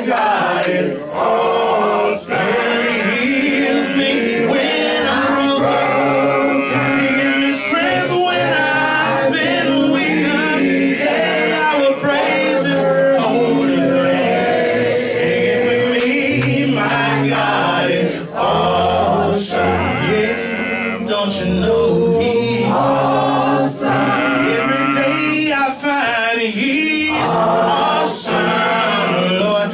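A man singing a gospel worship song into a microphone over a recorded backing track.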